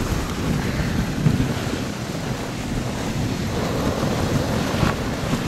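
Wind buffeting the microphone on a moving dog sled: a steady, low rushing rumble with no distinct events.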